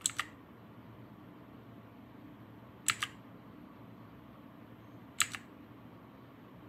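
Clicky Otemu blue mechanical keyboard switches pressed in short double clicks, three times about two and a half seconds apart, over a faint steady hum. Each pair of clicks is the Fn plus Insert combination that cycles the keyboard's RGB backlight mode.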